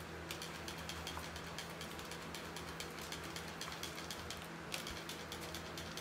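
Plastic trigger spray bottle pumped rapidly, a fast run of sharp clicks and spritzes misting liquid onto sheet metal, with a short pause about four and a half seconds in.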